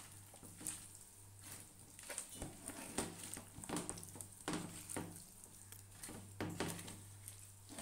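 Food being worked with kitchen utensils: a series of short, soft knocks and scrapes, irregularly spaced at roughly one to two a second, over a steady low hum.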